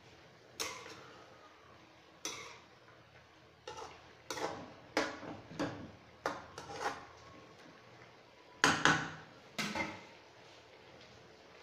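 A metal spoon clinking and scraping against a wok as pieces of chicken are stirred: about ten irregular knocks, the loudest about nine seconds in.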